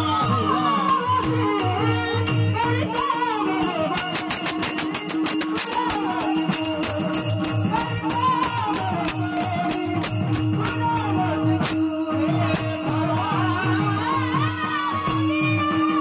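Traditional Marathi folk music: a wavering melody over a steady held drone, with a regular hand-drum beat. A rapid jingling rattle of small cymbals or bells plays from about four seconds in until about twelve seconds.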